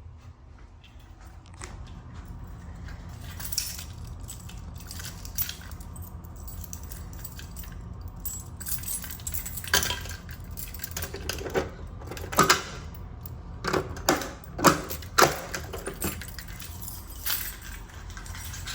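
A run of sharp metallic clinks and rattles, sparse at first and then thick and loud through the second half, over a low steady hum.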